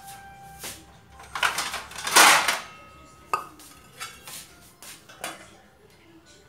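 Pots and utensils clattering and clinking, with a louder scraping rush about two seconds in and short metallic rings after some of the knocks.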